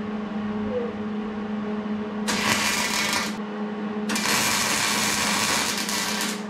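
MIG welder arcing in two bursts, first about a second long, then about two seconds long, laying tack welds on a steel roll bar. A steady low hum runs underneath.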